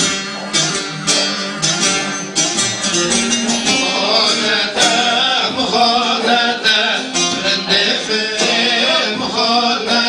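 Turkish folk music: a bağlama (long-necked saz) plucked in a quick, steady rhythm over electronic keyboard accompaniment, with a man's voice singing from about four seconds in.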